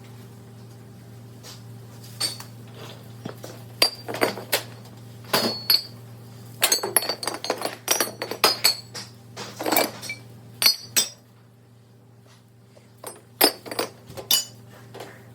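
Metal parts and tools clinking and knocking against each other in irregular clusters of sharp, ringing taps as brake caliper parts are handled, over a steady low hum.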